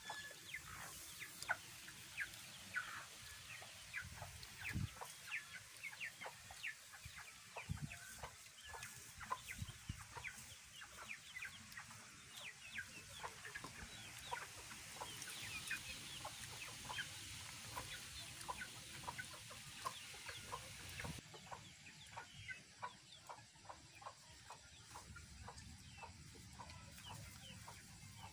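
Domestic chickens clucking: many short calls in quick succession.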